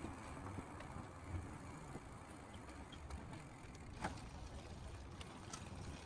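Faint steady outdoor ambience: a low rumble and general noise, with a few small ticks and one sharper click about four seconds in.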